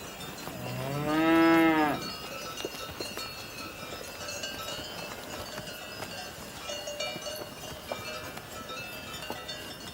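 A cow moos once, about a second in, in a single call of roughly a second and a half whose pitch rises and then falls. Faint high ringing sounds continue in the background afterwards.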